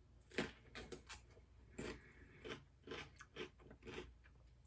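A person chewing crunchy food close to the microphone: short, irregular crunches, about two a second.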